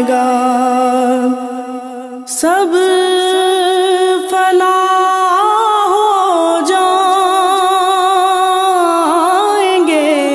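A woman singing a naat in long, drawn-out held notes that waver and bend in pitch. The first phrase fades out about a second in, and a new long note starts near two and a half seconds in and is held, gently ornamented, until near the end.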